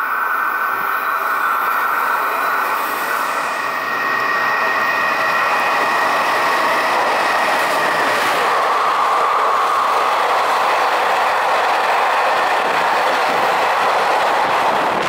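JR Freight EF510 electric locomotive and its container wagons passing through a station: steady running noise of steel wheels on the rails, growing louder as the locomotive comes alongside about eight seconds in and staying loud as the wagons go by. A thin high tone above it drops slightly in pitch as the locomotive passes.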